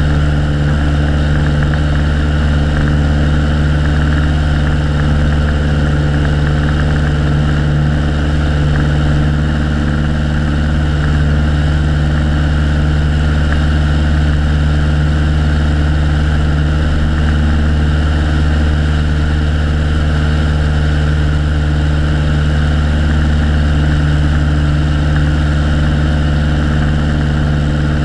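Piper Colt's four-cylinder Lycoming O-235 engine and propeller droning steadily in flight, heard from a camera mounted out on the wing strut.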